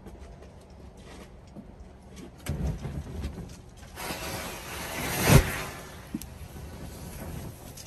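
An acetone trail catching with a low whoosh about two and a half seconds in, then a pile of leftover homemade chlorate-based exploding-target mixtures flaring up with a loud rushing hiss that swells to a sharp burst a little past the middle and then dies away.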